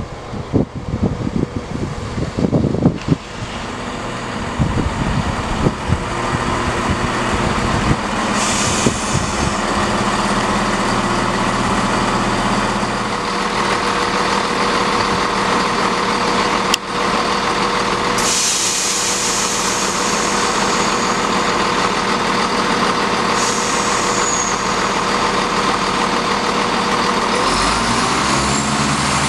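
Class 170 Turbostar diesel multiple unit drawing in along the platform and coming to a stand, its underfloor diesel engines then idling steadily, with bursts of air hiss. Near the end the engine note changes as the unit starts to pull away.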